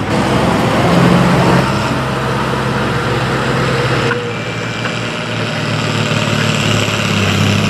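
International farm tractor engines running hard under load while pulling a weight transfer sled: one engine hums steadily, then about four seconds in the sound switches abruptly to a second tractor's engine.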